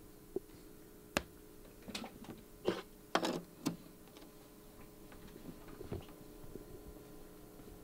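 A few light clicks and knocks of hands handling a projector, spread over the first four seconds, over a steady low hum.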